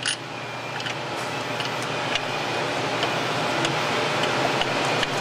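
Steady rushing background noise that grows slightly louder, with scattered light ticks of bolts being handled and started by hand into a transmission bellhousing.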